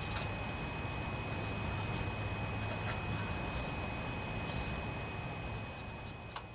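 Steady scratchy rubbing and scrubbing as dirt is cleaned out of the starter-gear housing of a lawnmower engine. It fades out near the end.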